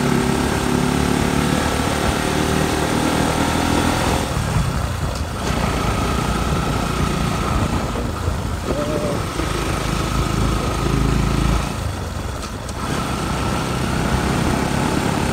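Motorcycle engine running with a shifting engine note, dropping away briefly twice.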